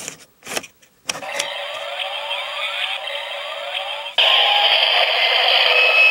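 Kamen Rider toy transformation belt triggered by the Vicarya Zetsumerise Key. A few plastic clicks as the key goes in, then the belt's electronic standby effect through its small speaker: a repeating rising sweep, about four times. About four seconds in it switches to a louder, harsher electronic effect.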